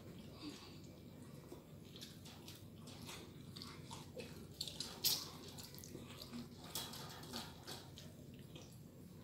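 Faint wet chewing and mouth clicks from people eating by hand, with scattered small sharp clicks.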